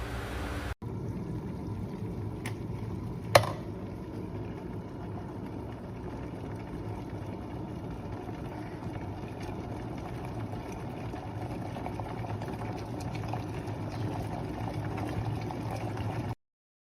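Hulmers 2-litre electric kettle heating water: a steady low rumbling hiss that grows a little toward the end. A sharp click comes a few seconds in.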